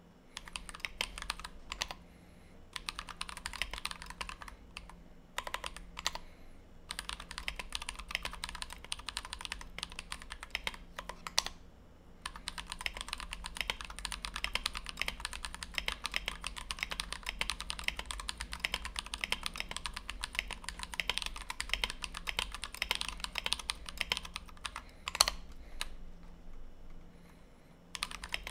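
Fast touch-typing on a Tofu 60 mechanical keyboard with a brass plate and lubed, filmed Everglide Dark Jade tactile switches under PBT OEM-profile keycaps: dense runs of key clacks broken by a few short pauses. One key strike about 25 seconds in is louder than the rest.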